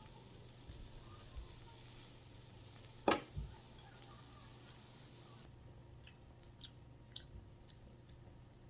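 Food sizzling on a grill, a steady hiss that fades about halfway through, leaving faint ticks. A sharp click about three seconds in, with a small thump just after, is the loudest sound.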